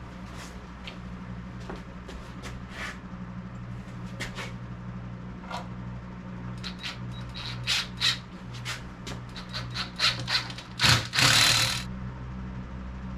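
Clicks, rattles and knocks of metal parts being handled while a benchtop belt grinder is assembled, over a steady low hum. The knocks come thicker about halfway through, with a loud scraping rustle near the end.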